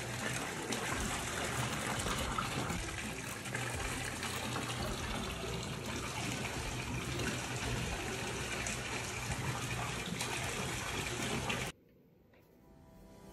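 Water running and splashing steadily, then cutting off suddenly near the end.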